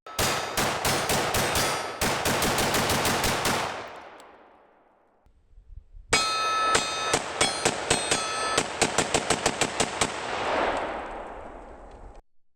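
Rapid gunfire: two strings of quick shots, several a second, with a pause of about two seconds between them, fired through an air-conditioner condenser. A ringing tone after many of the shots is typical of rounds striking a steel target behind the unit.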